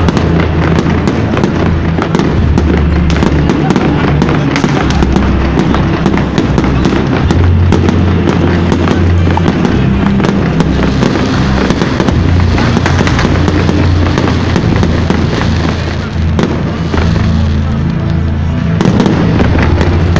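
Fireworks bursting and crackling in quick succession, over loud music and the voices of a crowd.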